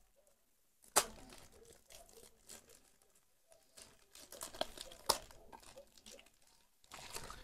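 Gift packaging being torn open and crumpled by hand: faint rustling and crinkling, with a sharp crackle about a second in and a few more about two-thirds of the way through.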